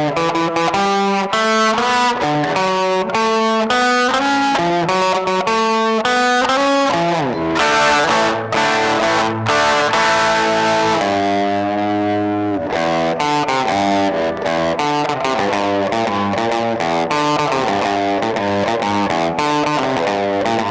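Electric guitar with mild distortion playing quick picked single-note lines. About seven seconds in it slides down in pitch, and around eleven to twelve seconds it holds a bent note with vibrato.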